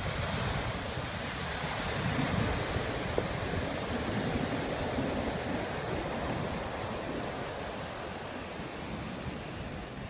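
Large ocean waves breaking and surf washing up a sandy beach: a continuous rush of white water that swells a couple of seconds in and eases slightly toward the end.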